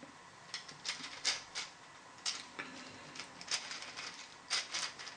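3D-printed planetary gear set with gear bearings turned by hand, its plastic gear teeth meshing in irregular light clicks and rattles in several short bursts.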